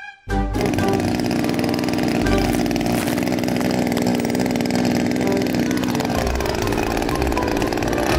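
Yamamoto 260 brush cutter's small two-stroke engine running steadily after being pull-started, dropping a little in speed about six seconds in before holding steady again.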